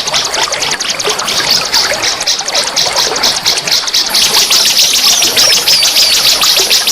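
Songbird in rapid-fire 'nembak' song: short, sharp, high notes repeated about ten a second without a break, getting brighter about four seconds in. Flowing water trickles steadily underneath.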